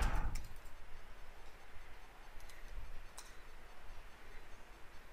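A few faint computer keyboard clicks as a word is typed, over a low steady hiss.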